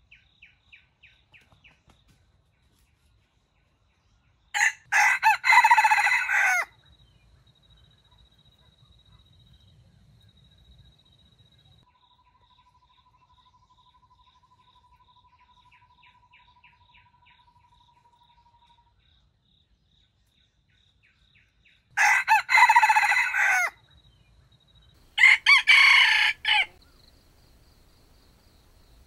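Red junglefowl rooster crowing three times, each crow about two seconds long: once about five seconds in, then twice a couple of seconds apart near the end. Soft clucking between the crows, over a steady high insect trill.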